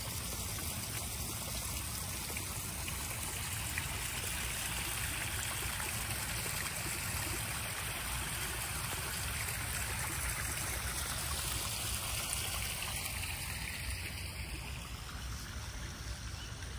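Steady trickling and splashing of water running into a backyard koi pond, growing a little quieter near the end.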